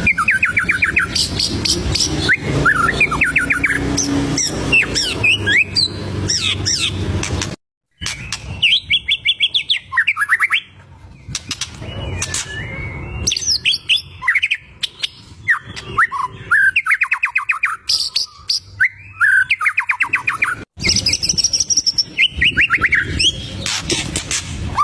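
White-rumped shama (murai batu) in full song: rapid trills of repeated notes, sweeping whistles and sharp chips, broken by two brief dropouts.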